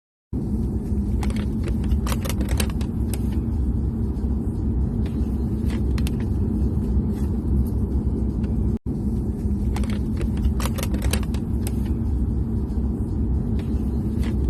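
Steady low rumble of a running motor vehicle, with scattered light clicks and rattles. It cuts out for an instant about nine seconds in.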